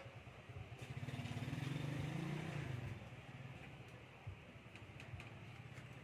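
A motor vehicle's engine passing by. It swells from about half a second in and fades out by about three seconds, followed by a few faint light clicks.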